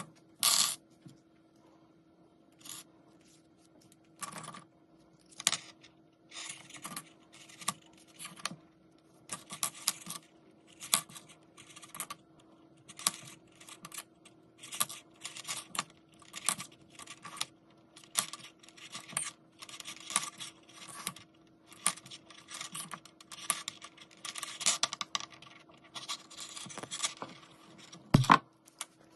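A long series of short scrapes and clicks from hand work on small hard objects, some with a faint metallic ring, over a steady low hum. Two louder knocks come near the end.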